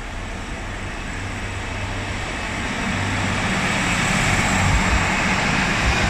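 East Midlands Railway Regional diesel multiple unit pulling away and running close past, its underfloor diesel engines giving a low hum that grows louder with a rushing rail noise as the carriages come alongside about halfway through. A few low knocks come from the wheels near the end.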